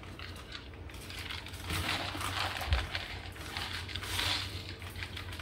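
Plastic vacuum-sealer bag crinkling and rustling as a raw steak is worked into it by gloved hands, with one dull knock a little under three seconds in.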